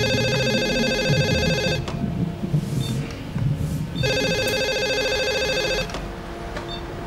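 Telephone ringing with a warbling electronic ring: two rings of just under two seconds each, about two seconds apart. The second ring cuts off as the handset is lifted.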